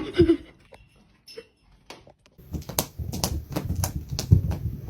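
A quick run of irregular sharp taps and clicks with low thumps under them, starting about halfway in after a brief quiet spell.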